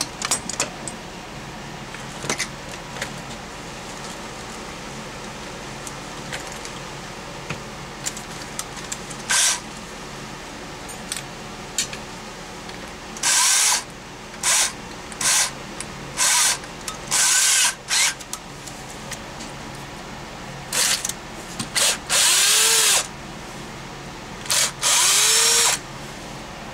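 Cordless drill-driver backing screws out of the drain auger's housing in a series of short whirring bursts, each a fraction of a second to about a second long, a few ending with a brief rise in pitch, with small clicks of handling between them.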